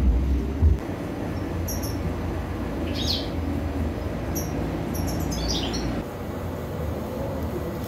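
Small birds chirping: a few short, high notes, with a quick run of falling chirps about five seconds in, over a steady low rumble.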